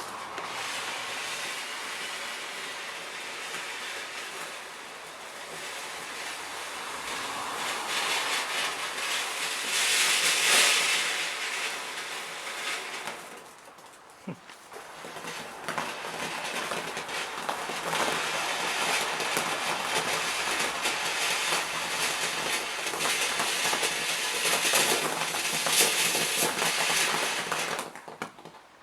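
Firework fountain spraying with a steady hiss and a fine crackle, swelling and then dying away about halfway through. About a second later another spray starts and runs on until near the end.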